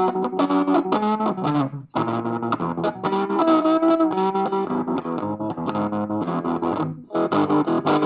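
Guitar music: rhythmic chords and picked notes over low bass notes, breaking off briefly about two seconds in before carrying on.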